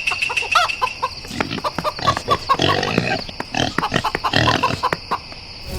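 Animal calls: a rapid series of short, high-pitched squeals and grunts, mixed with sharp clicks.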